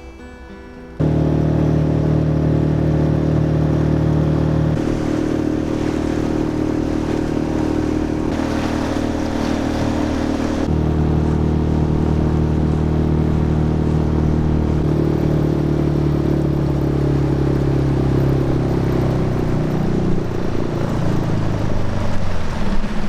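An engine running steadily. It cuts in abruptly about a second in, shifts pitch a few times and eases off near the end.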